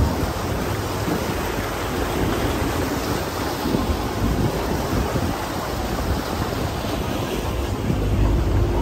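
Steady rush of wind buffeting the microphone and water churning past a moving boat, with a low rumble underneath.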